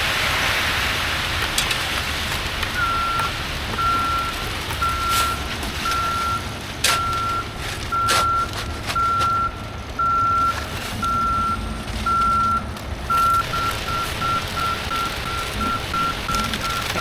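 Concrete truck backing up: its reversing alarm beeps at one steady pitch, slowly at first and then faster near the end, over the low running of its diesel engine. A few sharp knocks sound during the beeping.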